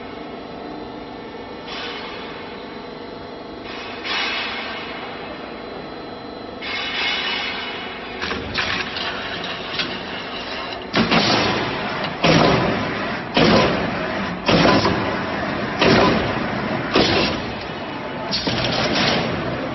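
Roller shutter door slat roll-forming machine running steadily. About halfway through, loud metal clanks begin, roughly one a second.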